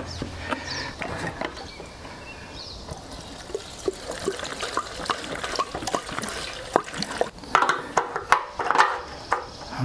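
Gasoline poured from a plastic jerry can through a funnel into a motorcycle fuel tank, a trickling pour, with clicks and knocks from handling the can and tank, most of them near the end.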